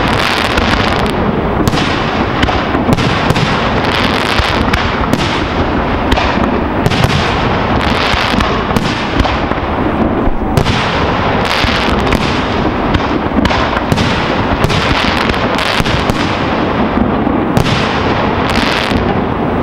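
Professional aerial fireworks display: shells bursting in quick succession, a dense, continuous run of bangs and reports that overlap one another with hardly a pause.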